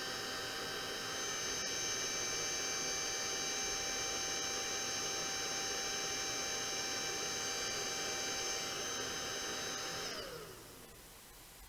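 Hair dryer blowing steadily with a motor whine, then switched off about ten seconds in, its pitch falling as the fan winds down.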